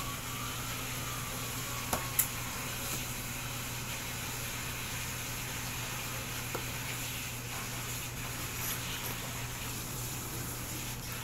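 Steady low mechanical hum, like a running fan, over room hiss, with a few faint clicks and wet slurping sounds of a star apple being bitten and sucked, including two short clicks about two seconds in.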